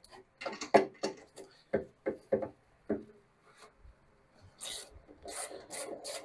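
Hand socket ratchet turning a bolt into the VW Beetle front beam mount, its pawl clicking. A few separate clicks in the first three seconds, then from about four and a half seconds a steady run of quick clicks, about four a second.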